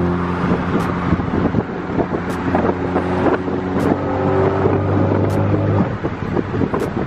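Ford Focus ST's turbocharged 2.0-litre four-cylinder engine droning at steady highway cruising revs, heard from inside the cabin with wind and road noise. The engine note shifts about three seconds in and again near six seconds, and faint ticks come about every second and a half.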